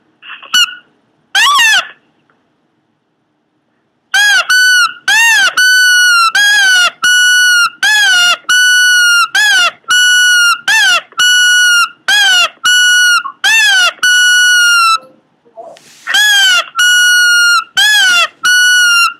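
Pomeranian making a rapid series of loud, high-pitched honking yelps, each a short note that rises and then holds, about one a second, with a short break near the end.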